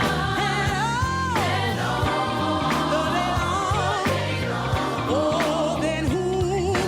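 Gospel song with a choir and a solo voice singing long held notes with vibrato over a steady keyboard and bass accompaniment.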